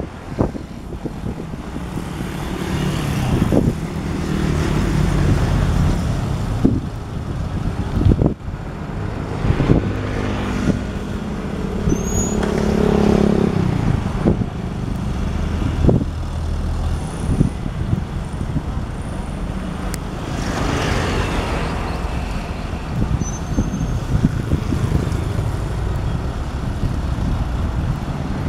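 Diesel engine of a loaded dump truck running and revving up and down as the truck manoeuvres slowly over rough dirt, with occasional sharp clunks.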